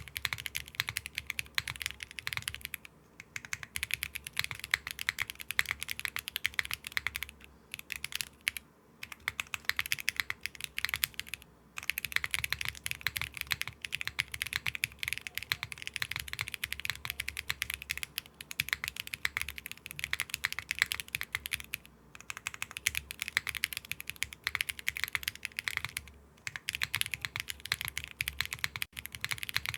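Steady fast typing on a mechanical keyboard fitted with Akko Creamy Pro V5 factory-lubed switches, alternating every ten words between the Creamy Yellow linear and the Creamy Blue tactile versions. The key clicks are dense and crisp, with brief pauses every few seconds.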